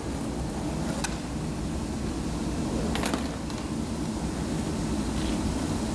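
Skateboard wheels rolling over asphalt with a steady low rumble. Sharp clacks of the board about a second in and about three seconds in.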